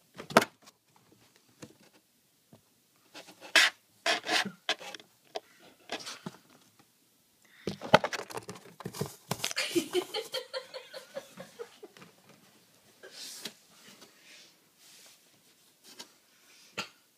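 Cardboard box scratching and rustling in short, irregular strokes as a kitten moves around inside it. From about eight to eleven seconds in there is a drawn-out, voice-like sound that falls in pitch at the end.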